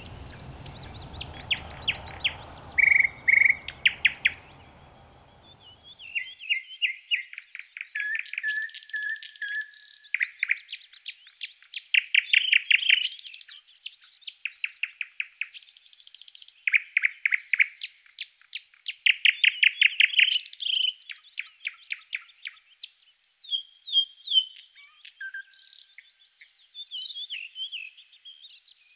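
Several songbirds singing continuously in a mix of rapid trills and short chirps, from a recorded nature-sound background track. A faint low background noise underneath stops about six seconds in.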